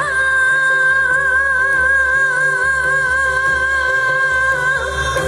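A woman sings into a microphone, holding one long high note with a slow vibrato over a backing track with a steady bass, and lets the note go shortly before the end.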